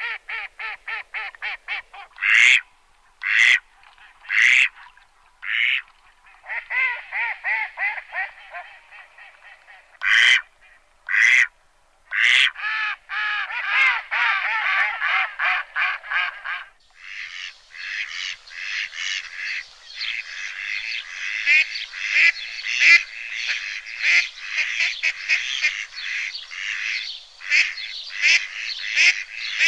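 Ducks quacking. It opens with a quick run of short quacks, then single loud quacks about a second apart, then a dense, overlapping chatter of quacks through the second half.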